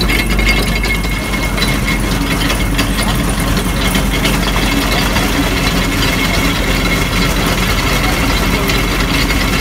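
Gear-driven roller sugarcane crusher running steadily, its cast-iron gears and rollers clattering in a dense, even rattle as cane stalks are fed through to be crushed.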